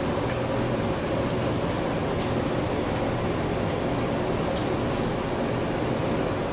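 Samosas deep-frying in a wok of oil on a gas burner: a steady sizzle over a low machine hum, with a few faint light clicks.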